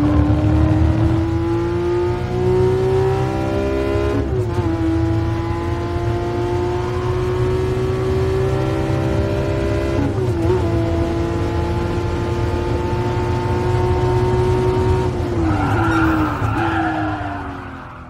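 Porsche 997 GT3's naturally aspirated flat-six at full throttle, heard from inside the cabin. It revs up steadily toward the redline, and its pitch drops sharply at two upshifts, about four and ten seconds in. Near the end the engine eases off, its pitch stepping down, and the sound fades out.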